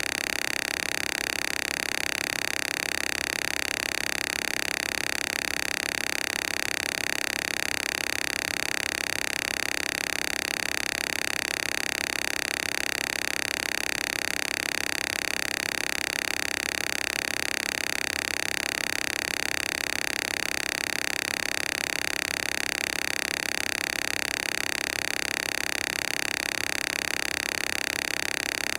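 Steady electronically generated frequency tones from a PC Zapper set, unchanging, loudest in a bright high band with many fainter steady tones above and below it.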